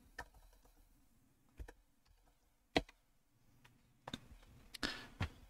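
Faint, separate taps on a computer keyboard, about six with pauses between them, the loudest about three seconds in and a few close together near the end.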